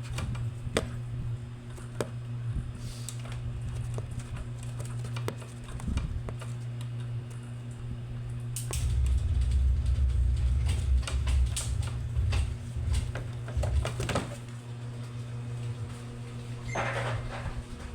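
Ceiling fan running with a steady low hum, with scattered clicks and knocks over it and a heavier low rumble in the middle.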